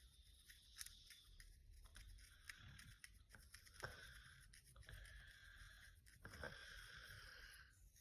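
Fingernails scratching through a scalp flaking with dandruff: faint, repeated dry scraping strokes.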